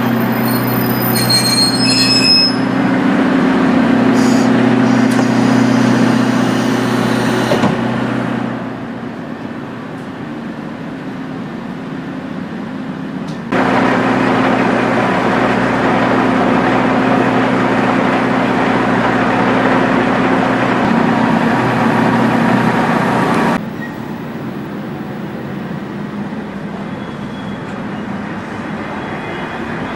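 Original DMF15HSA diesel engine of a KiHa 40 railcar heard from aboard, running with a steady low engine note. The sound drops abruptly to a quieter run about eight seconds in, comes back loud a few seconds later, and drops again about two-thirds of the way through, as the power is cut, applied and cut again.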